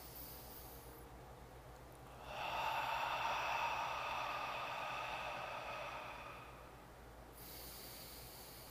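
A man doing a deep belly-breathing exercise: a soft nasal inhale ends about a second in, then a long exhale through the open mouth runs for about four and a half seconds, and another inhale starts near the end.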